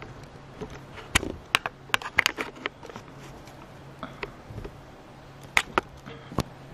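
Irregular sharp clicks and taps, a quick cluster about a second in and a few more near the end, over a faint steady hum.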